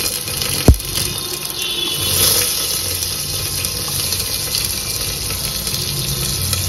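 Vegetable chunks sizzling steadily in hot oil and ghee in an open pressure cooker, with one sharp knock less than a second in.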